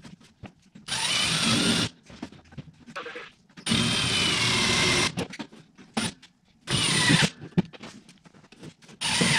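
Cordless drill driving half-inch self-drilling screws into thin sheet metal, in four runs of about a second each with a short blip between them.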